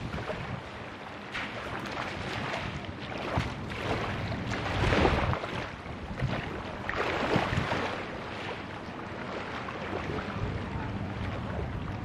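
Small waves washing against the shore and water sloshing as a person wades into shallow sea, with wind buffeting the microphone. The wash swells and fades every couple of seconds.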